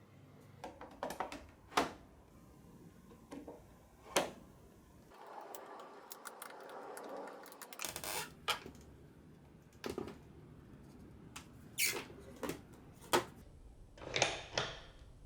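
A string of sharp, separate clicks and knocks, about a dozen, spread unevenly, with a few seconds of steadier hiss-like noise in the middle.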